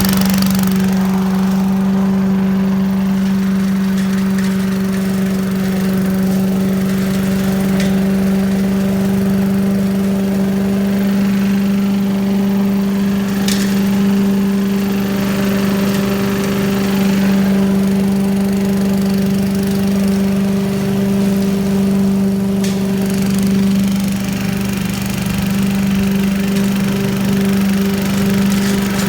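A 1980s Billy Goat lawn vacuum's small gas engine running steadily at constant speed, with an even hum. It runs smoothly once started.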